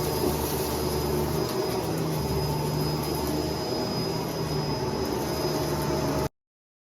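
Vacuum cleaner running with a steady motor drone and hum, cut off abruptly about six seconds in.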